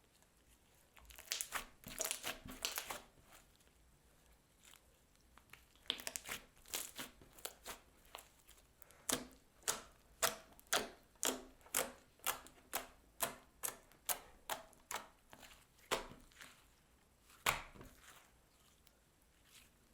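Slime mixed with floam beads being pressed and kneaded by hand, crackling and popping. It comes first in short clusters, then as a steady run of presses about two a second, then a couple of single ones near the end.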